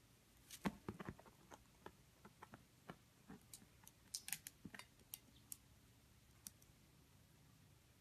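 Faint, irregular clicks and taps of a white-bellied caique's claws and beak on a plastic TV remote as it clambers over it, bunched most thickly near the middle.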